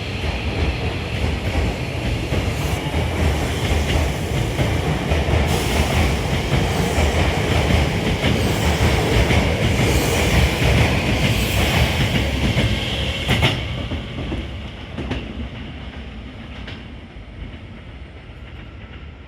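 Hankyu 8000 series electric train pulling out of the station and running past, its wheels clacking over rail joints. The running noise builds to a peak a little past the middle and then fades away as the train leaves.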